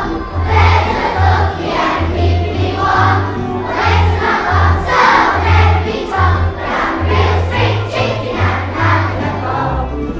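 A large group of young children singing a song together over a musical accompaniment with a repeating bass line.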